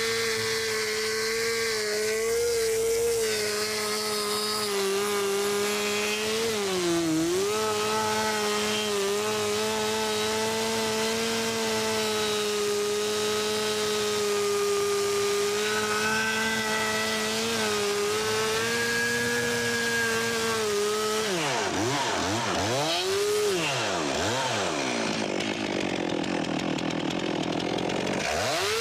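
Stihl MS 362 two-stroke chainsaw held at full throttle, cutting through stacked sawmill slabs to buck firewood. The engine note holds steady in the cut, with a short dip about seven seconds in. Near the end the throttle is let off and opened again several times, so the engine pitch drops and climbs repeatedly before it settles back at full revs.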